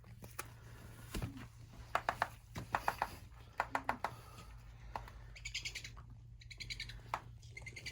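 A bird chirping in a fast, high trill twice in the second half, among scattered sharp clicks.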